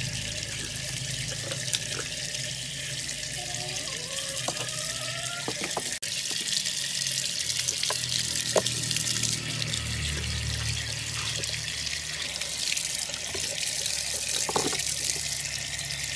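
Water running from an outdoor tap in a steady stream, splashing off hands and onto the concrete below as stalks are rinsed under it.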